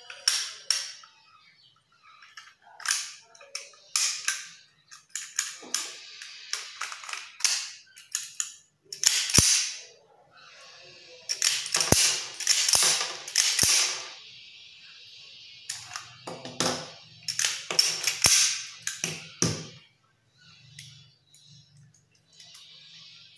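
Irregular sharp metal clicks and clacks of a semi-automatic pistol being reassembled and worked by hand as the slide is fitted onto the frame, with several louder clacks among them.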